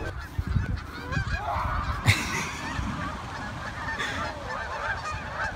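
A large flock of geese honking continuously, many calls overlapping, as the birds are chased off the ground and take flight. A single sharp knock cuts in about two seconds in.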